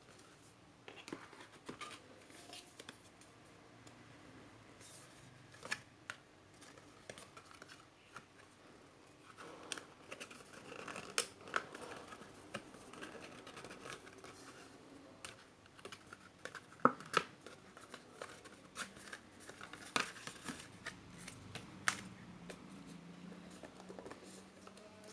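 Hands opening a CD album's packaging: plastic wrapping scratching and crinkling, with scattered sharp clicks and taps.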